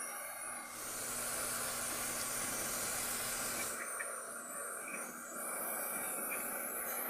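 Aerosol carburetor cleaner spraying onto a lawnmower carburetor's exterior in a steady hiss. It is strongest for about three seconds near the start, then continues weaker.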